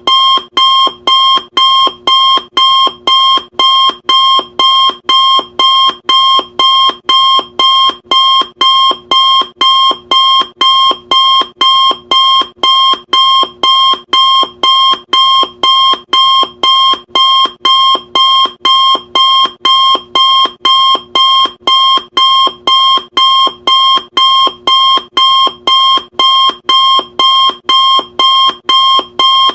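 Electronic countdown timer alarm beeping loudly and steadily, about two short, sharp beeps a second, each at the same high pitch and fading quickly, signalling that a timer has run out.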